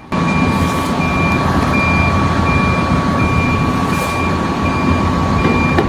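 Heavy machine's reversing alarm beeping a little faster than once a second over its diesel engine running, with a steady high whine underneath.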